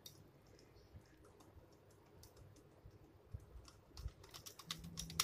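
Wire balloon whisk beating cake batter in a glass bowl, its wires clicking against the glass. Faint scattered ticks at first, then quick, louder clicking from about four seconds in.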